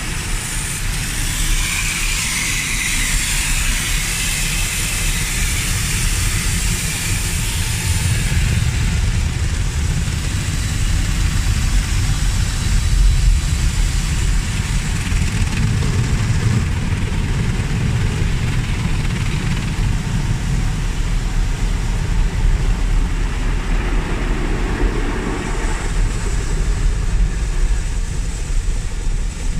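Automatic car wash heard from inside the car. Water jets hiss against the windshield for the first several seconds, then the rotating brushes scrub over the car with a steady low rumble.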